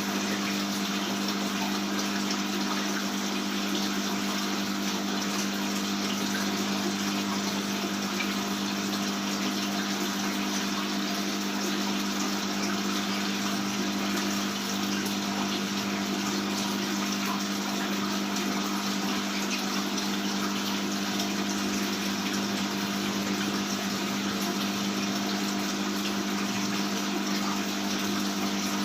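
An aquarium water pump running with water pouring and splashing into the tank: a steady low hum under an even rush of water.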